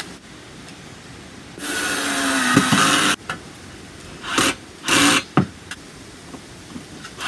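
Cordless drill driving wood screws through a thin metal lantern base into a wooden board: one run of about a second and a half, then two short bursts a little later as the screw is snugged down.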